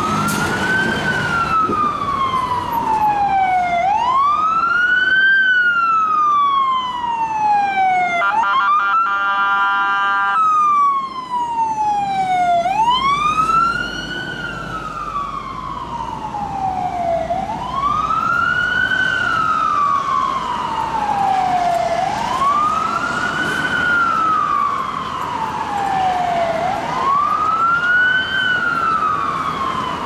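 Fire engine siren on a slow wail, rising quickly and falling slowly about every four seconds. About eight seconds in, a steady air-horn blast sounds for about two seconds over it.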